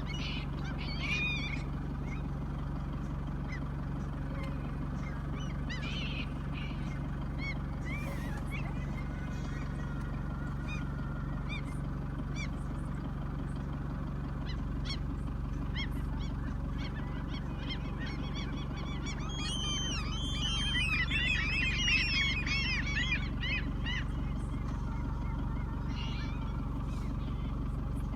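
Birds calling: scattered single calls, then a dense flurry of many overlapping calls lasting several seconds about two-thirds of the way through, over a steady low hum.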